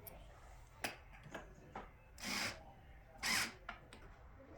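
Door hardware being handled and fitted: a few light clicks, then two short scraping rubs about a second apart.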